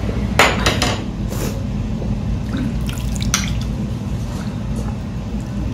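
Ramen broth splashing and dribbling as it is ladled from a large ceramic bowl into a small bowl. A few sharp clinks of the metal ladle against ceramic come through, the strongest about half a second in and again a little after three seconds, over a steady low hum.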